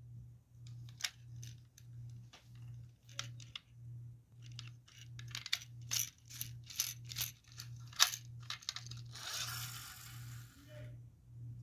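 Plastic friction-powered toy fire truck being pushed by hand: a string of light plastic clicks and rattles that grows thicker over several seconds, then the whirring hiss of its friction motor for about two seconds as it rolls off across the carpet.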